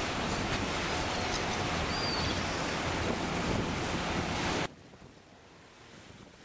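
Wind rushing over the microphone and water rushing along a hull, heard as a loud, even roar. The roar cuts off abruptly a little over two thirds of the way through, leaving a much quieter hiss.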